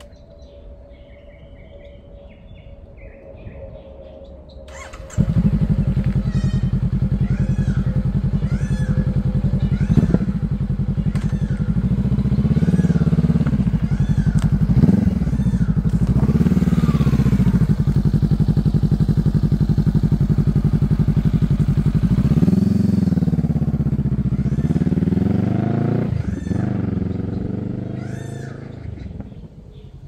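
Honda CB500X parallel-twin with an aftermarket Mivv Suono exhaust. It idles, then turns suddenly loud about five seconds in and is revved again and again, its pitch rising and falling with each blip of the throttle. Near the end it pulls away and fades into the distance. A few bird chirps are heard faintly in the first seconds.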